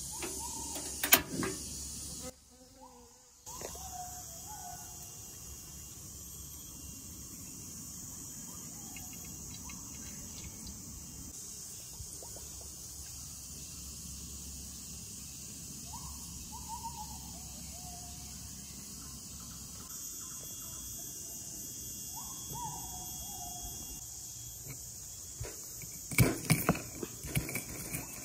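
Steady high chirring of insects, with a bird giving short falling calls several times. Near the end, a stone pestle knocking and grinding against a stone mortar as turmeric is crushed.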